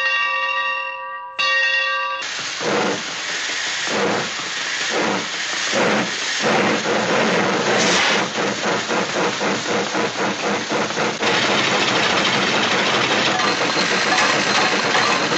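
A bell rings for about two seconds, then steam-locomotive chuffing starts: slow, hissing chuffs about a second apart that quicken until they merge into a fast, steady rhythm of steam.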